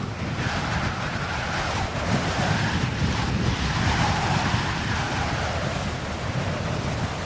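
Steady rushing noise with a low rumble, swelling a little around the middle, of the surf or wind kind.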